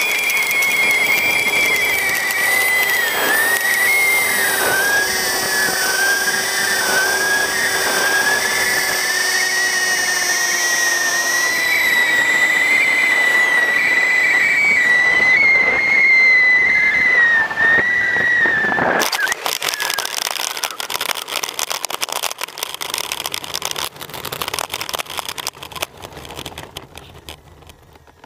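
Electric ducted fan of an FMS L-39 Albatros RC jet, heard from on board, whining steadily with a slightly wavering pitch. About two-thirds of the way through the whine cuts off, and a crackling rattle is left that fades out.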